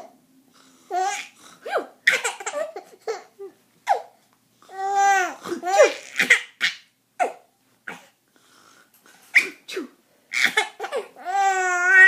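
Baby laughing in repeated short bursts, with two longer, wavering drawn-out vocal sounds about five seconds in and near the end.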